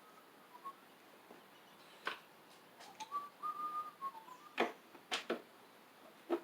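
A person whistling a few soft, wavering notes, with sharp clicks and knocks of tools and parts being handled; the loudest knock comes about halfway through.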